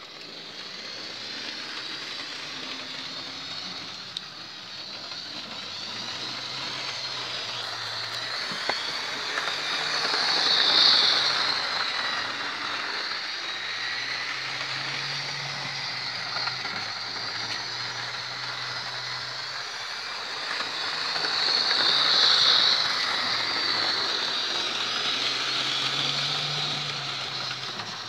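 Lima Deltic model locomotive running around the layout with its wagons: a steady electric-motor whirr and the rattle of wheels on the rails, swelling twice as it passes close by, about ten seconds in and again about twenty-two seconds in.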